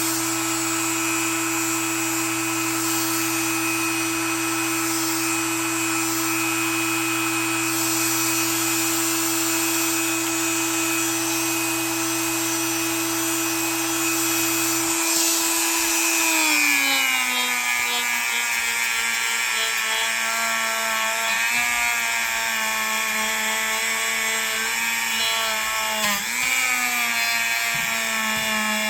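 Small electric buffing tool running steadily as knife blades are polished with compound, a steady whine. About halfway through its pitch drops and then wavers: the motor slowing under load as the blade is pressed to the wheel.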